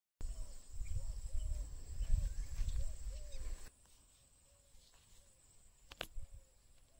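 Outdoor ambience with a short animal call repeating about twice a second. Heavy low rumble runs through the first half and stops suddenly. A single sharp click comes near the end.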